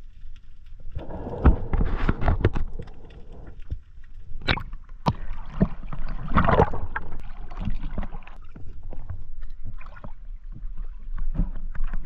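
Water splashing and sloshing around a diver at the surface beside a boat, with scattered sharp knocks and bumps as he handles his catch and climbs aboard.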